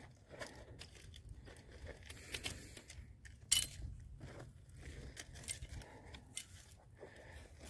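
Faint rustling and light metallic clicking as a steel beaver foothold trap and its wire are handled, with one sharper click about three and a half seconds in, over a low rumble.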